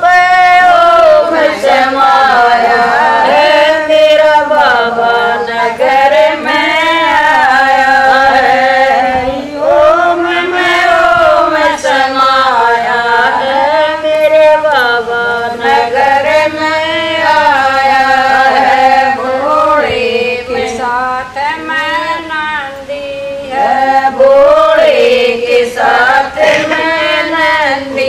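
A group of women singing a Haryanvi Shiva bhajan together in long, continuous phrases.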